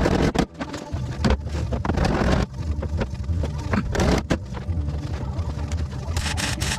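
Background music with a heavy bass line and a drum beat.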